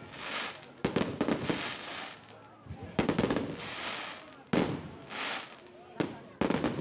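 Aerial fireworks shells bursting: five sharp bangs, the first four about a second and a half apart and the last two close together near the end, each trailed by crackling.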